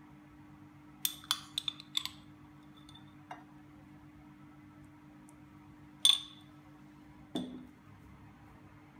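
A metal spoon clinking against a glass jar and a plate as jam is spooned out. There is a quick run of light clinks about a second in, one sharp clink around six seconds and a duller knock just after, over a faint steady hum.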